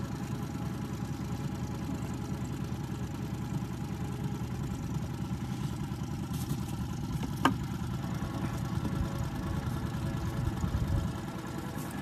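Small Mercury outboard motor idling steadily. A single sharp click comes about seven and a half seconds in.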